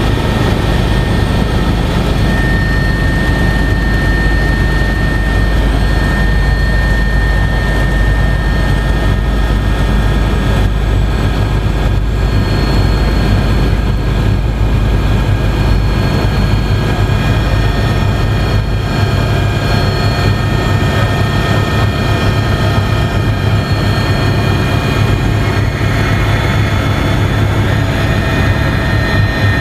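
Cabin noise of an Agusta A109S Grand twin-turbine helicopter in flight. A loud, steady low drone from the rotor and engines, with thin steady turbine whines on top.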